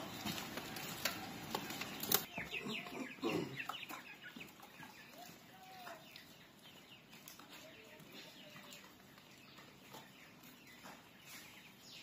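Chickens clucking and chirping faintly, with a knock and rustling from handling about two seconds in.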